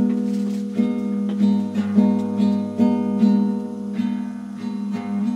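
Acoustic guitar music, strummed chords, starting suddenly.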